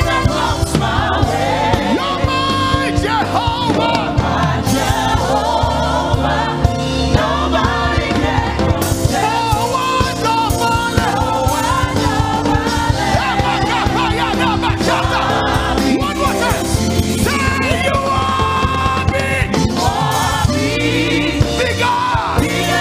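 Live gospel praise-and-worship music: a band playing with a group of singers singing together.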